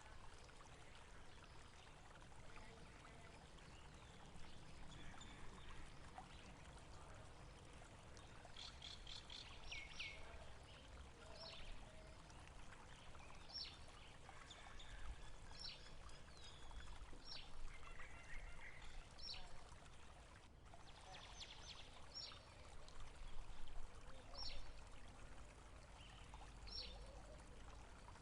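Running water flowing steadily, with a bird repeating short, high chirps from about a third of the way in.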